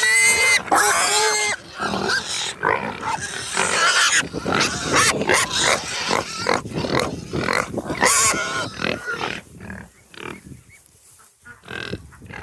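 A pen of young pigs squealing and grunting. It opens with high, wavering squeals, followed by a dense run of grunts and squeals that dies down after about nine seconds.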